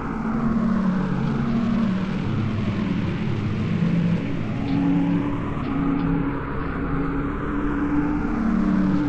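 Designed fantasy/sci-fi ambience for anti-matter energy: a dense low rumbling drone with shifting low tones, swept by a slow whooshing phaser-like sweep that rises and falls about every four seconds.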